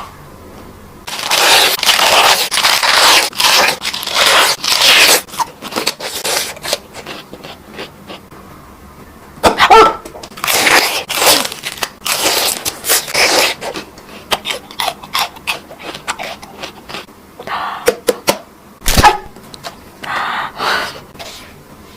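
Close-miked eating sounds: bites and crunchy chewing in runs of several seconds, with a quieter pause partway through.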